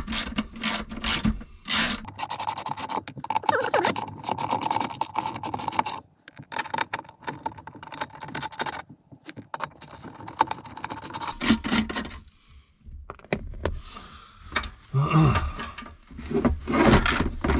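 Glove box parts in the dash of a 1990 Chevy truck scraping, rubbing and knocking as they are pulled out by hand, with irregular clicks and knocks throughout.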